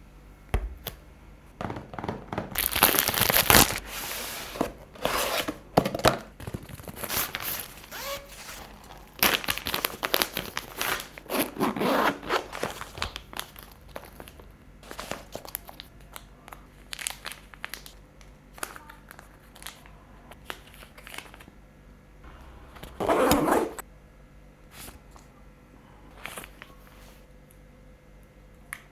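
Unboxing of a DJI Osmo Pocket 4: packaging being handled, with irregular crinkling, rustling and tearing and scattered small clicks and taps, coming in uneven louder stretches with quieter handling between.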